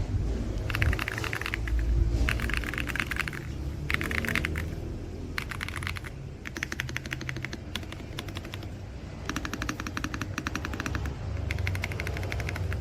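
Typing on a Royal Kludge RK R65 gasket-mount mechanical keyboard: fast runs of keystrokes in bursts, with short pauses between them.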